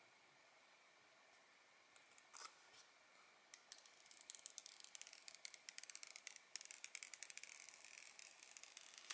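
Protective film being peeled off a new iPhone 13's screen: a couple of soft clicks, then from about three and a half seconds in a fast crackle of fine clicks as the adhesive lets go.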